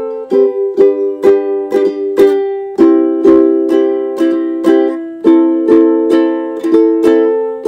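Background music: strummed string-instrument chords in a steady rhythm, about two strums a second.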